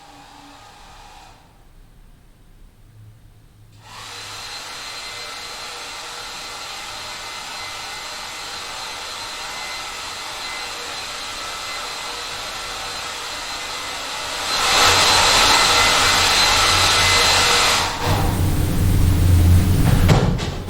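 Hair dryer running in another room, somewhat muffled. It switches on about four seconds in and blows steadily with a faint whine, gets louder about fifteen seconds in, and turns deeper and louder again near the end.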